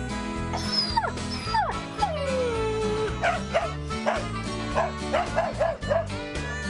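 A dog whines in a few falling cries, then gives a quick run of short, high yips, over background guitar music.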